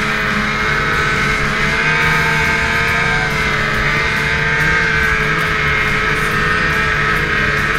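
Lynx Boondocker 3700's 600 E-TEC two-stroke snowmobile engine running steadily under throttle through deep powder, its whine drifting slightly up and down in pitch.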